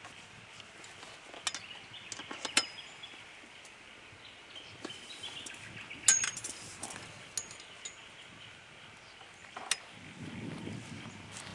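Scattered sharp metallic clinks and taps from metal annex poles and tent pegs being handled and set up. A few of them ring briefly, and the loudest comes about six seconds in.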